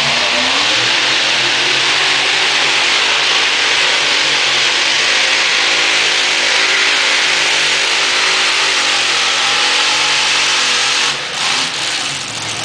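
A pulling tractor's engine runs loud at full throttle under load as it drags the sled. It revs up at the start, its pitch wavers through the pull, and it eases off about eleven seconds in.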